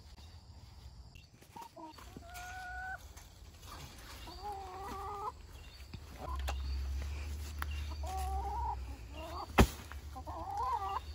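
Backyard hens calling: about four drawn-out clucking calls, each about a second long, a couple of seconds apart. A single sharp knock comes near the end.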